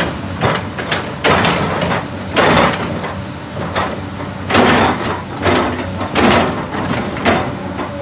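Komatsu PC220 hydraulic excavator's diesel engine running steadily as the boom and bucket move, with loud noisy surges about once a second over the engine's hum.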